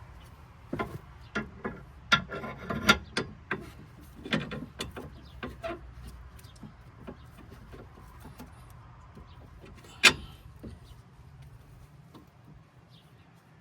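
Clicks and metal knocks of hand tools and parts being worked during a control arm and sway bar link replacement. A busy run of clicks lasts about five seconds, scattered clicks follow, then one sharp knock near the end.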